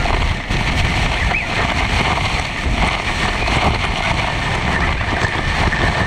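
Waterfall pouring down right at the microphone: a loud, steady rush of falling water with a heavy low rumble and splashing.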